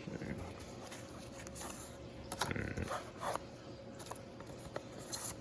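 A dog vocalising briefly, a short whine-like call about two and a half seconds in, with a few light clicks around it.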